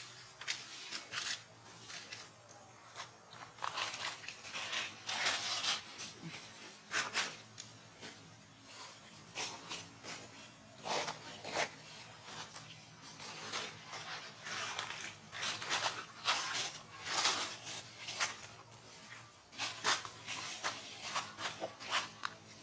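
Irregular rustling, scratching and crunching noises close to the microphone, in quick uneven clusters.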